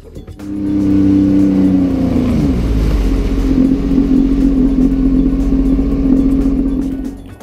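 2015 Sea-Doo GTX jet ski running under throttle with water rushing past the hull; the engine note drops a little about two seconds in, then holds steady, and stops abruptly near the end.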